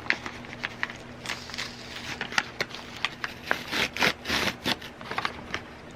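A toy's packaging bag crinkling and being torn open by hand: a run of crackles and rustles, with longer tearing rustles about four seconds in.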